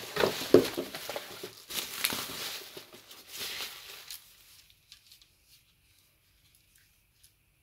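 Plastic bubble wrap crinkling and rustling as hands dig through it in a cardboard box, with a few sharp knocks, stopping about four seconds in; faint clicks follow.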